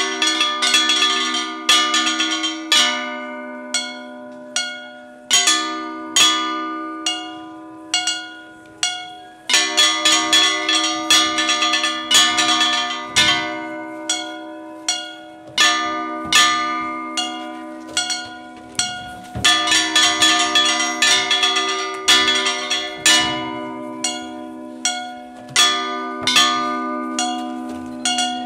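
Festival taiko troupe playing: large brass hand cymbals clashed again and again, their ringing metallic tones hanging on between strokes, mixed with shoulder-strapped drums beaten in time. The strokes come in dense flurries with brief lulls.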